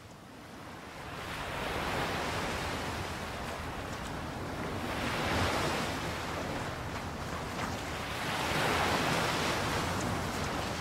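Pacific Ocean waves breaking on a beach, the surf swelling and easing every three to four seconds.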